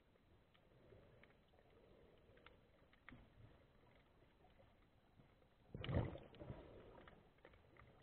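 Muffled underwater ambience picked up through a camera housing: faint scattered clicks over a low hiss, with one loud, muffled thump about six seconds in.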